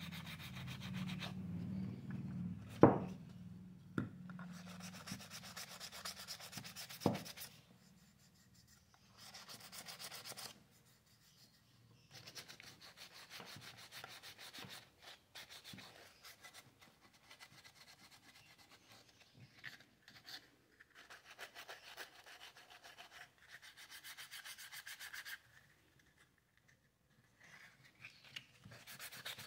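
Sanding the filled and painted surface of a wooden statue smooth: spells of quick, scratchy rubbing strokes that stop and start. There are three sharp knocks in the first seven seconds, the first the loudest.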